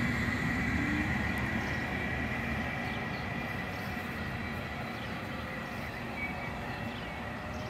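Duewag GT8N articulated tram pulling away from a stop and moving off, with a rumble and a steady high whine that fade as it recedes.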